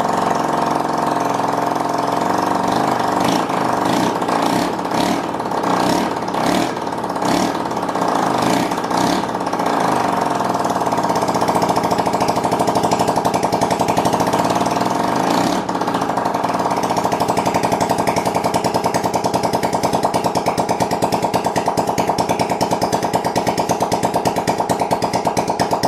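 Honda Ruckus 49cc four-stroke single-cylinder scooter engine running with no exhaust fitted and the airbox removed, a loud rapid popping. The engine speed rises and falls several times in the first ten seconds, then it runs steadily.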